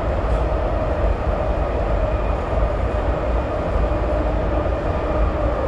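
BART train running at speed, heard from inside the car: a steady low rumble with a constant whine over it.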